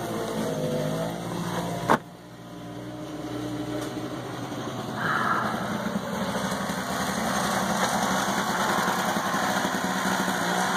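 Small gasoline snowblower engine running steadily. A sharp click about two seconds in, after which the engine sound is briefly quieter, then builds back up and holds steady.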